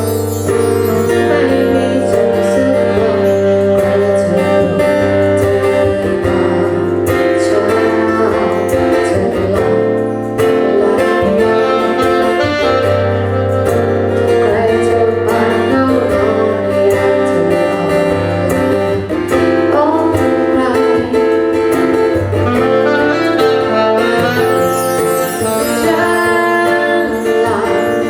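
Live band music: a sustained melody line over guitar and a steady bass, played without pause.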